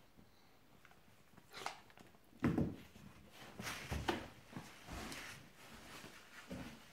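Two small dogs play-fighting on a leather sofa: a few short dog noises and scuffling, starting after a quiet second and a half, the loudest about two and a half seconds in.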